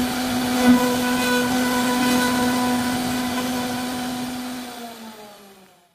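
CNC router spindle running with its bit carving wood: a steady motor hum with overtones over the hiss of cutting. The sound fades away over the last two seconds.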